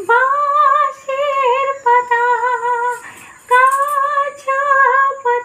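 A woman singing unaccompanied in a high voice, holding long notes with a wide vibrato, in five or six phrases broken by short breaths.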